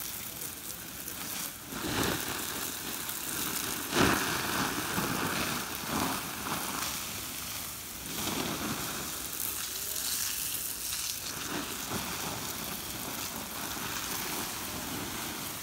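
A garden hose nozzle on its jet setting sprays water onto a campfire's hot embers, and the embers sizzle steadily as the fire is put out. The sizzling swells louder a few times, about 2 and 4 seconds in.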